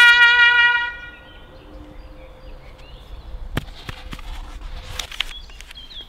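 A trumpet fanfare ends on a long held note that fades out about a second in. Then it goes quiet apart from a sharp click and a short rustle near the end, as of a paper scroll being handled.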